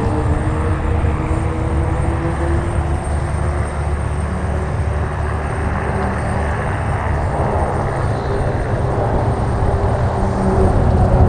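A formation of Pilatus PC-9/A single-engine turboprop aircraft flying overhead, their propellers and engines making a steady drone over a low rumble. It grows a little louder near the end.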